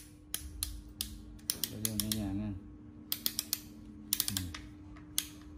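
Sharp plastic clicks and taps from a corded Black & Decker hammer drill being turned over and handled, coming in small clusters, over a steady low hum.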